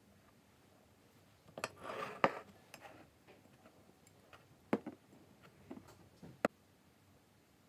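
Ceramic bowls, a plate and a drinking glass being slid about and set down on a wooden table. There is a short scraping slide about two seconds in, then a handful of sharp knocks spread over the next few seconds.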